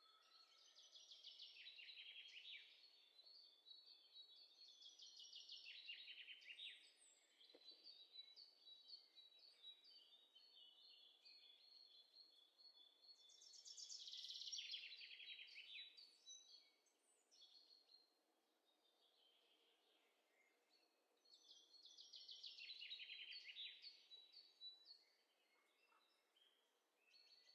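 Faint songbird singing: four bouts of rapid trills, each a couple of seconds long and falling in pitch, over a faint hiss.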